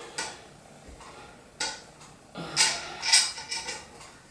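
Screws being started and turned by hand with a screwdriver into a ceiling fan's metal blade brackets: a few sharp metallic clicks, then a run of clicking and creaking in the second half.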